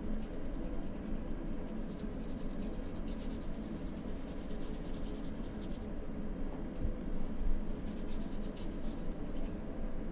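Paintbrush scrubbing and scratching across a stretched canvas in quick, rough strokes, coming in two spells with a pause in the middle.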